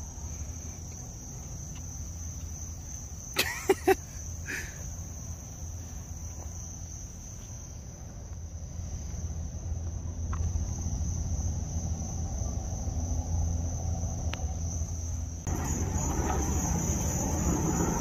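Steady high-pitched insect chorus over a low rumble, with a few sharp clicks about three and a half seconds in and a louder rushing noise joining near the end.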